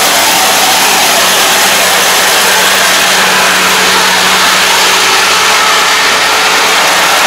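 Kubota ARN460 combine harvester working, its diesel engine and threshing machinery giving a loud, steady drone with an even hum underneath.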